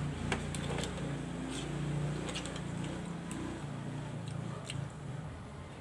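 Boiled scallop shells being handled by hand over a steel bowl, giving sharp clicks and taps every half second or so. Under them runs a low drone that fades about four seconds in.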